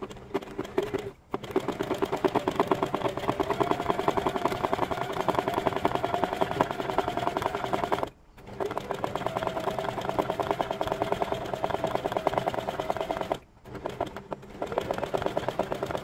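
Domestic sewing machine running fast, stitching a zigzag stitch for free-motion embroidery: a rapid, even needle clatter over a motor hum, with a few brief stops.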